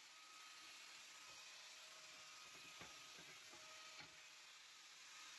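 Near silence: a steady hiss with a couple of faint clicks about three and four seconds in.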